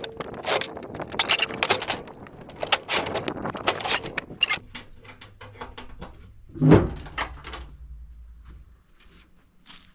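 Firewood being handled and tossed: a run of wooden knocks and clatters, then one heavy thud about seven seconds in, followed by lighter knocks.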